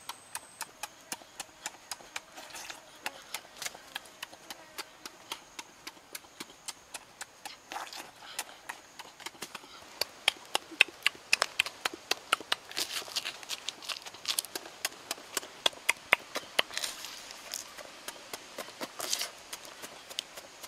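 Roasted shrimp shells cracking and crunching as the shrimp are peeled by hand and eaten: a long run of sharp crackles and clicks, coming thicker and louder from about halfway.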